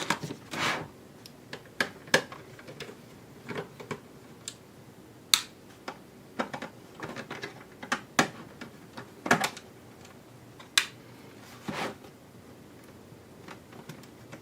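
Irregular sharp clicks and taps of small tools and plastic parts being handled while a PlayStation 4 console is taken apart.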